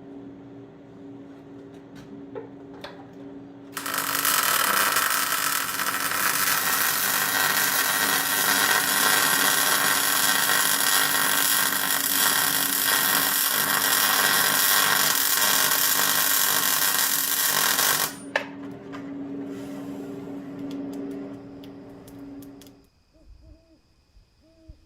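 A handheld power tool starts about four seconds in, runs loudly and steadily, and cuts off sharply about 18 seconds in. A steady low hum runs beneath it and stops a few seconds later.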